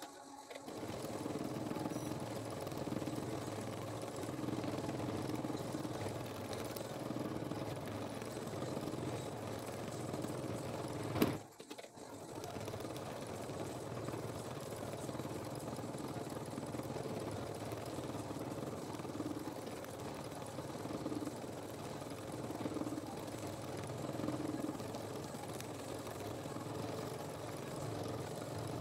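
Janome Skyline S9 sewing machine stitching at speed while free-motion thread painting: a steady running hum of the motor and needle that swells and eases as the speed changes. About eleven seconds in there is a sharp click and a moment's drop before it runs on.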